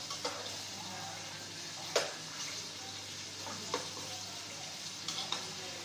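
Chicken frying in oil in a large steel pot, a steady sizzle. A metal spoon stirring it knocks against the pot a few times, the loudest knock about two seconds in.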